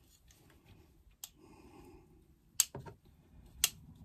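Metal leather hole-punch pliers being handled while fabric scraps are cleared out of the clogged punch tube: three sharp, small metallic clicks, spaced a second or so apart.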